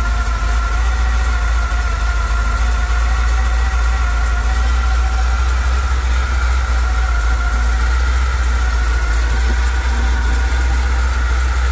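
454 big-block V8 idling steadily: an even low rumble with a steady high whine riding over it.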